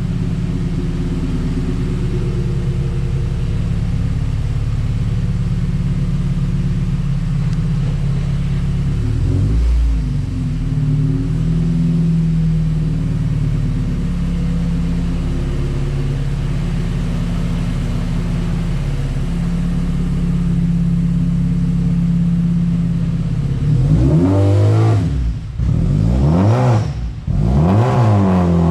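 Freshly rebuilt Honda B16B 1.6-litre DOHC VTEC four-cylinder idling steadily, with a short throttle blip about ten seconds in, then revved sharply up and back down twice near the end.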